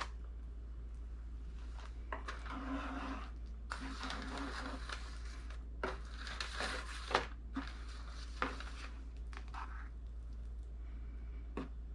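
Offset spatula scraping and smoothing thick fudge across a pan in several strokes, with a few sharp clicks, loudest about seven seconds in.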